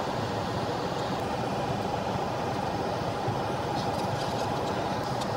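Steady fan noise: an even rush of air with a constant mid-pitched tone, with a few faint light ticks near the end.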